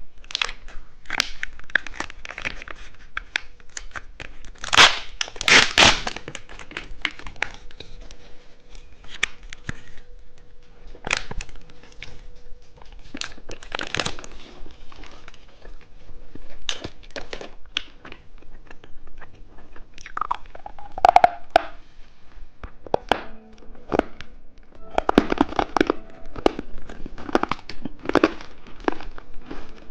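Plastic snack wrapper torn open and crinkled, with close-up chewing, as a packaged cheese-stick snack is opened and eaten. The crackling comes in irregular bursts, loudest about five seconds in and again near the end.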